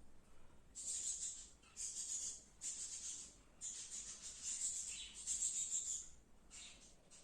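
A person blowing their nose hard several times: short hissy blasts of air forced out through the nostrils, one near the middle drawn out for over two seconds.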